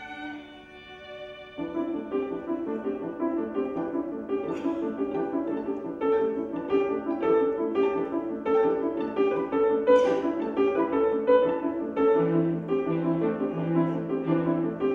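Instrumental music. Held notes give way, about a second and a half in, to a louder, busy pattern of short repeating notes, and deep pulsing notes join underneath in the last few seconds.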